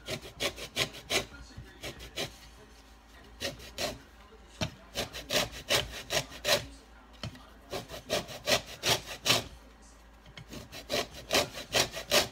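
A lemon rubbed up and down a grater to take off the zest: quick rasping strokes, about four a second, in runs broken by short pauses.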